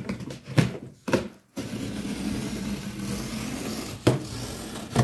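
A few knocks on a large cardboard box, then about three seconds of steady rasping as a utility knife slits the cardboard along the top, with another sharp knock near the end.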